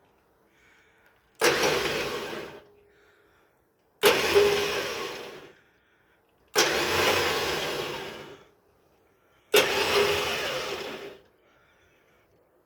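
A 6-ton vehicle winch run in four short bursts, each starting suddenly and fading off over one to two seconds.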